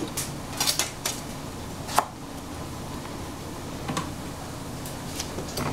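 Scattered clicks and clinks of kitchen utensils and dishes being handled, with the sharpest clack about two seconds in, over a steady low hum.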